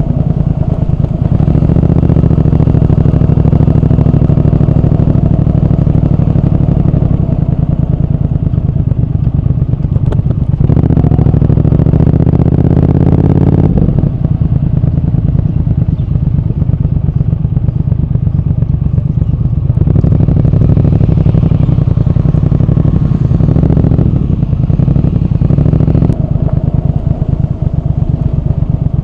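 Triumph Speed Twin 1200's parallel-twin engine and exhaust running on the move. About ten seconds in, the pitch rises as it accelerates through a gear, then drops sharply at a gear change near fourteen seconds.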